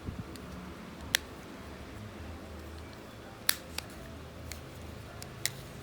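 A few short, sharp plastic clicks and taps from handling a keypad mobile phone with its back cover off and battery out, over a faint low hum.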